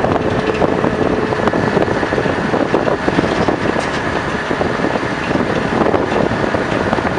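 Steady running noise of a train on a railway viaduct, a dense rumble and rattle, with wind on the microphone.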